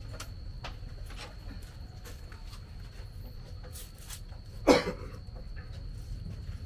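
Knife cutting a cucumber held in the hand, giving soft irregular clicking cuts over a low background rumble. About two-thirds of the way through, a brief loud sound sweeps sharply down in pitch.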